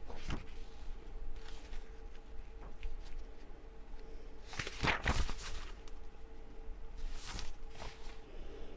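Quiet room tone with a faint steady hum, broken by a few short, soft rustles and handling noises from a seated person moving; the loudest comes about five seconds in.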